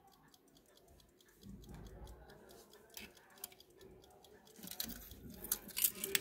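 Antique mechanical pocket watches ticking, a quick, even run of faint ticks. Near the end come louder clinks of metal watch cases and chains being handled.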